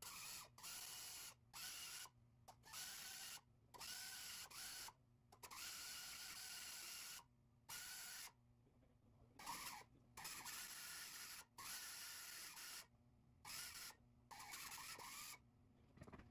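Faint die grinder porting the aluminium housing of a TVS twin-screw supercharger, a hissing whine that runs in short bursts and cuts in and out many times.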